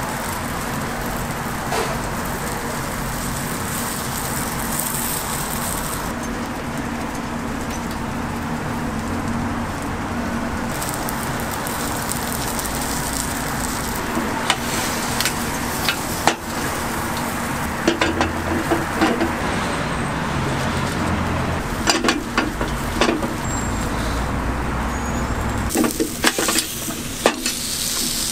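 Bungeoppang (fish-shaped bread) batter sizzling steadily in a street stall's hot molds, with street traffic underneath. Sharp clicks and knocks come in about halfway through and grow more frequent near the end.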